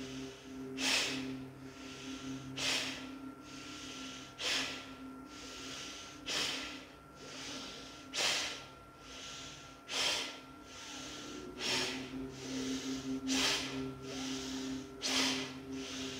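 Slow Bhastrika breathing: forceful nasal exhalations about every two seconds, with softer inhalations between them.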